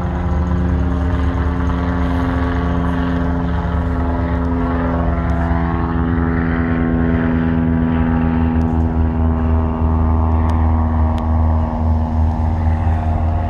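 Loud, steady engine drone with a deep hum and a near-constant pitch.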